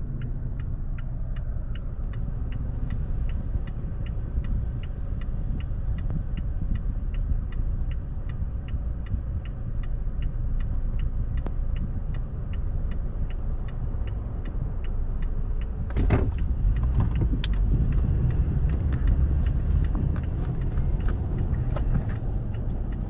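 Car interior road noise, a steady low rumble while driving, with the indicator relay ticking evenly about two to three times a second throughout. About sixteen seconds in there is a louder rush of noise.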